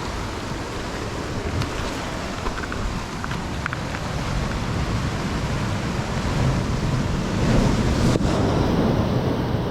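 Ocean surf washing against the rocks, mixed with wind on the microphone; the wash swells louder about two-thirds of the way through.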